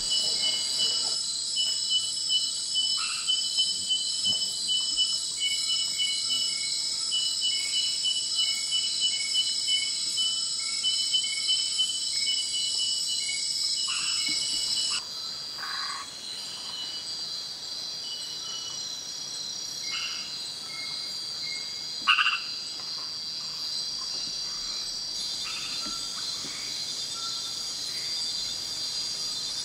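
Night rainforest chorus of frogs calling over a steady, high-pitched insect drone. Short call notes repeat rapidly through the first half. The chorus changes abruptly about halfway, and a louder single call stands out about two-thirds of the way in.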